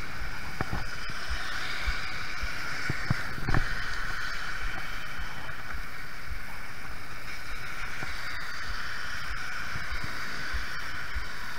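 Motorized bicycle riding on a wet road in the rain: a steady rushing hiss of wind and water spray with the engine running underneath, and one knock about three and a half seconds in.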